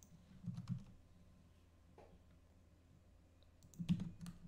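A few faint computer mouse and keyboard clicks over a low steady hum, the loudest click just before the end.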